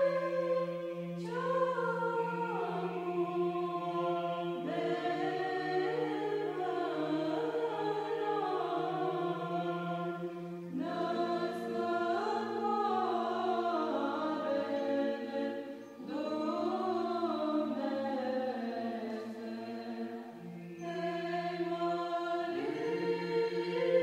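Background music: a choir chanting, with a long-held low drone note beneath a slow melody, in phrases that break off every five or six seconds.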